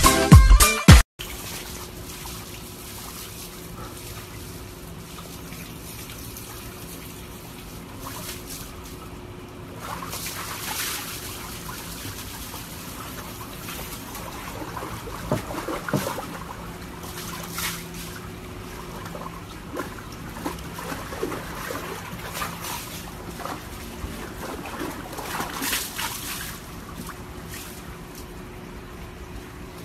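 Brief music in the first second, then water sloshing and splashing in a plastic tub as a husky shifts about in it, with a few louder splashes scattered through and a faint steady hum underneath.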